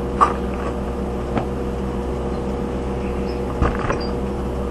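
Steady electrical hum from an idling Hobart Stickmate 230 transformer stick welder, with a few sharp knocks as the workpiece is moved. No arc is struck.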